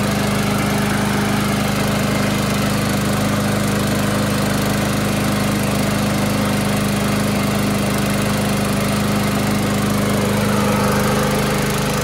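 Murray walk-behind lawn mower's small single-cylinder engine running steadily at one even speed, now started after repair of a mower that would not start when pulled.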